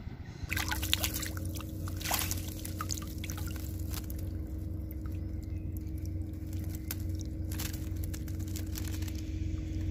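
Water pouring and dripping off a wire-mesh keep net as it is lifted out of the sea, with scattered splashes and clicks, over a steady low hum that starts about half a second in.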